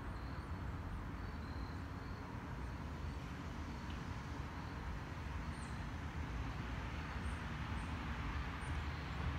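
Steady outdoor background noise: a low rumble under an even hiss, with a few faint, short high chirps in the second half.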